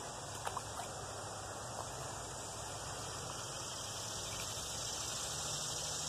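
Steady background hiss with a few faint clicks about half a second in.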